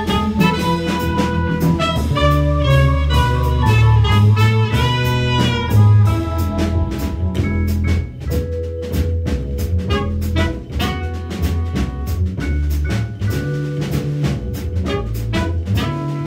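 Live small-band jazz: trumpet and saxophone carry held melody notes with a rising bend about five seconds in, over a plucked upright bass and a mallet keyboard. From about six seconds on, dense drum-kit and cymbal strokes come to the front.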